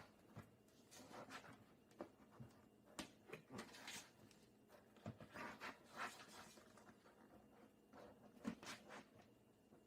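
Faint, scattered rustles, taps and light knocks of a large collapsible photo light box being handled and fitted together.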